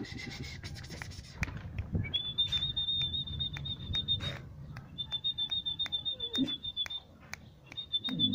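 A metal chain clinks and rattles on concrete as a chained husky puppy moves. A steady high-pitched trill sounds three times, about two seconds each.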